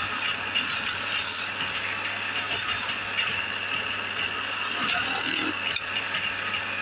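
Wood lathe running with a hand chisel scraping and cutting the spinning wooden workpiece: a steady rasping hiss over the machine's constant low hum, with a couple of brief high-pitched squeals as the tool bites.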